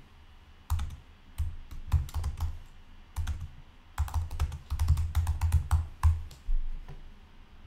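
Computer keyboard typing: keystrokes clicking in short bursts as a short sentence is typed, stopping about six seconds in.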